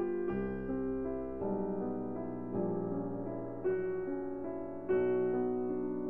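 Background piano music, with a new chord struck about once a second.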